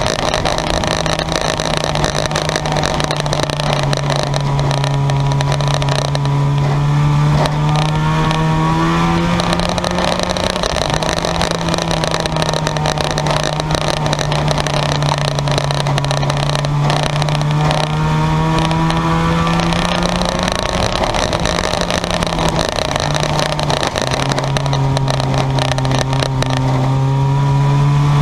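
Junk yard race cars' engines running hard in a race, their pitch repeatedly rising as they accelerate and falling back.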